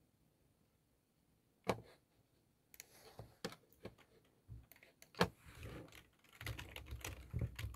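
Scattered keyboard-like clicks and taps: a lone click after a quiet start, then irregular taps that come quicker near the end.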